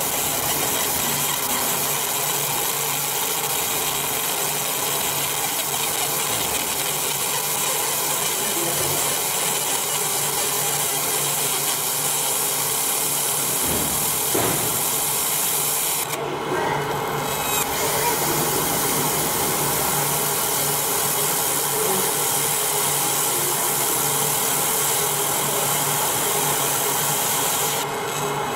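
Fiber laser marker deep-engraving an aluminium plate: a steady high hiss of the pulsed beam ablating the metal, over a low steady hum from the machine. The hiss breaks off briefly about sixteen seconds in and again near the end, as the laser pauses between passes.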